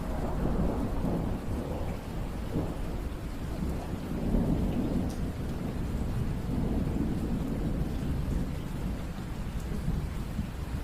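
Steady rain with a long roll of thunder that swells in at the start and rumbles on in waves.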